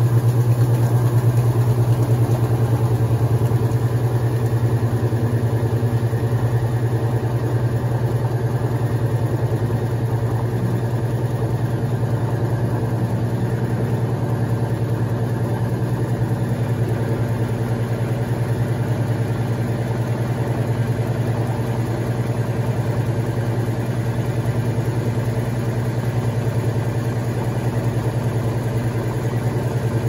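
Electrolux Top 8 top-loading washing machine running with a steady low motor hum and no pauses.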